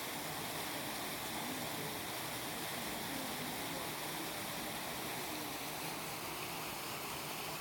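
Steady rushing background noise with faint, indistinct voices in the distance.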